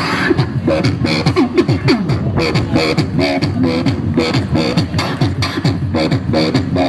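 Human beatboxing into a handheld microphone, played through a portable amplifier: a fast, steady run of drum-like clicks and snares with a hummed bass line that slides in pitch underneath.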